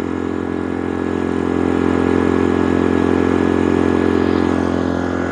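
DuroMax XP2300iH inverter generator's 80cc four-stroke air-cooled engine running steadily with no load and eco mode off, which holds it at its loudest unloaded speed.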